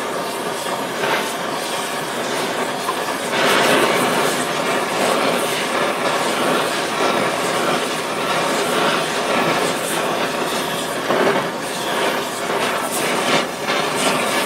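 Oxyacetylene torch flame running with a steady hiss, with irregular sharp crackles and pops as it burns the bonded rubber out of a control arm bushing.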